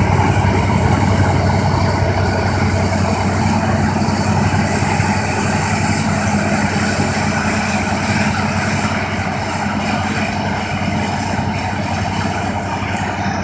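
New Holland CX5080 combine harvester running under load while harvesting wheat: a steady low engine and machinery drone that fades slightly as the combine moves away.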